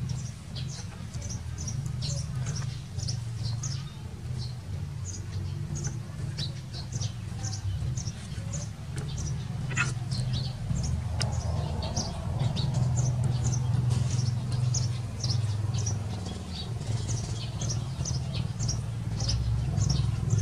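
Small birds chirping: many short, high chirps, several a second, over a steady low rumble.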